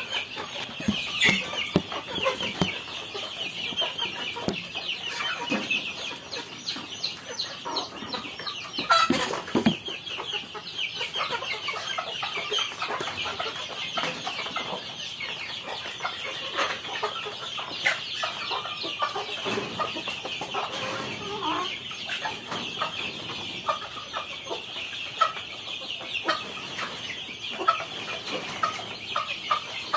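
A flock of chickens clucking and calling, with a constant chatter of many short, high-pitched calls over occasional lower clucks.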